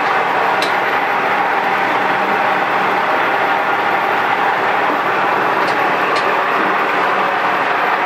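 Steady machine noise at a constant loud level, with a faint hum in it. A few light clicks come through, about half a second in and twice around six seconds.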